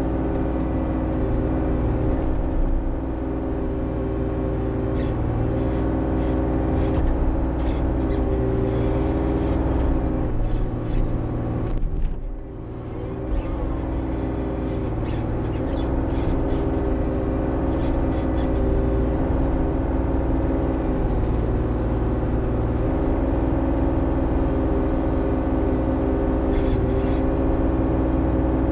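Bobcat E35i mini excavator's diesel engine running steadily under hydraulic load, heard from the operator's seat, with short scraping sounds as the bucket works the ground. The engine sound dips briefly about twelve seconds in.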